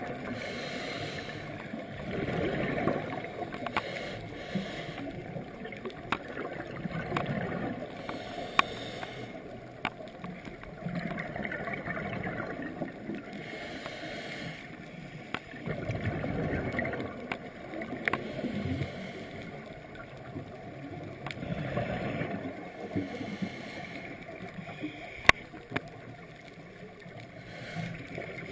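Scuba diver's regulator breathing heard underwater through the camera housing: muffled bursts of exhaled bubbles every four or five seconds, with a few sharp clicks.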